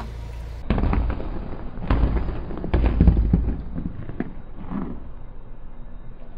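Car tyre rolling onto and crushing brittle white chalky lumps on paving stones, crunching and crackling in three strong bursts about a second apart, then a few smaller ones, over the low rumble of the rolling car.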